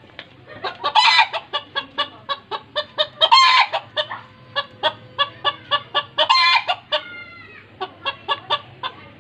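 Bantam chickens clucking rapidly, about three or four clucks a second, with three louder, harsher calls about one, three and a half and six and a half seconds in. A short falling call follows about seven seconds in.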